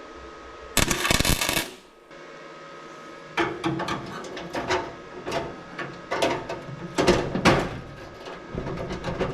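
Welding nuts onto a steel toolbox lid: a burst of arc crackle lasting about a second, then after a pause a string of short, irregular crackling welds.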